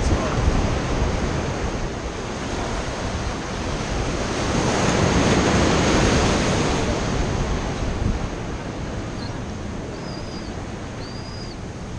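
Wind rushing over the microphone over the churning whitewater of the inlet's fast current breaking around the pier below, swelling louder about halfway through.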